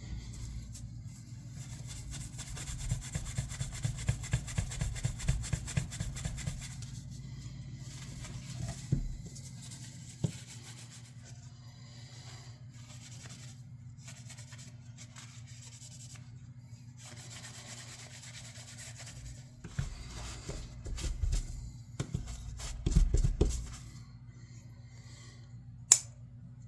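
Hand work at a bench: a run of quick rubbing or scraping strokes, then quieter handling with a few knocks and one sharp click near the end.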